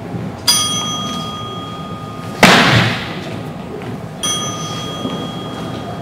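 A competition signal bell struck twice, about four seconds apart, each strike ringing with a clear tone for about two seconds. Between the two strikes comes a loud thump, the loudest sound here.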